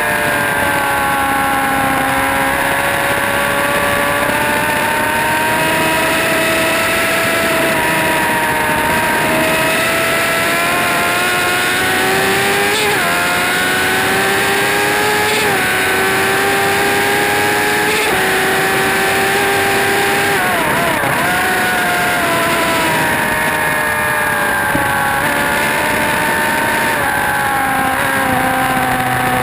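Motorcycle engine running hard on a racetrack lap. The pitch drops sharply and climbs again three times, about two and a half seconds apart, as it shifts up through the gears, then wavers through a quick series of downshifts.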